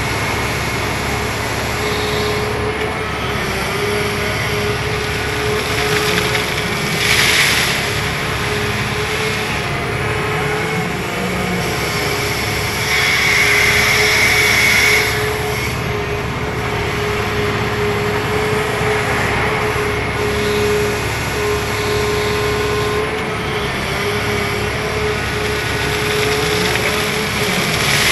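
Caterpillar 336E hydraulic excavator running under digging load: its diesel engine rumbling steadily under a held whine, growing louder and hissier twice, about seven seconds in and again for a couple of seconds near the middle.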